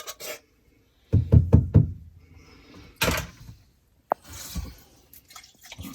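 A can of condensed cream of chicken soup being knocked against a bowl to shake out the last of the soup. There are four or five quick, dull knocks about a second in, then softer scraping and a sharp click.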